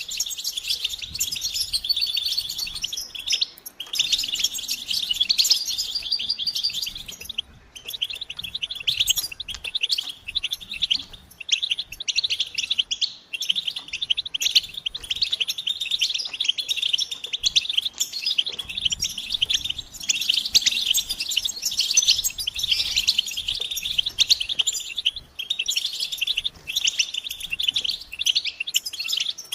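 European goldfinches in a group, chattering and twittering without a break in a dense run of fast, high chirps, with brief lulls about three and a half and seven and a half seconds in. These are the excited mating and readiness calls used to stir silent males into song.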